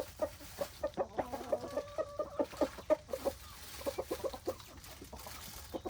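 Chickens clucking: a rapid run of short clucks, with one longer, drawn-out call held over it from about one to three seconds in.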